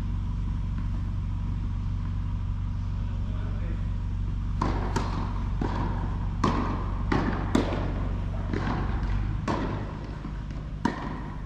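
Steady low hum of a large indoor tennis hall. From about halfway in comes a string of sharp, echoing pops, irregularly spaced, from tennis balls being hit and bouncing.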